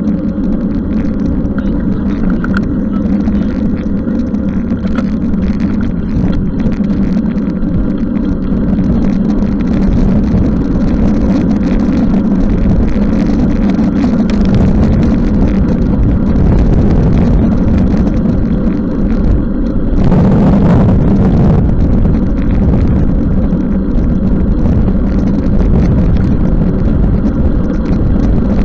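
Steady low rumble of riding a bicycle in the rain, with a louder rush about twenty seconds in.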